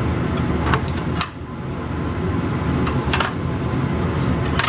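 A butter knife clicking and scraping against an aluminium baking sheet while cutting a meatloaf, a handful of sharp clicks over a steady low background hum.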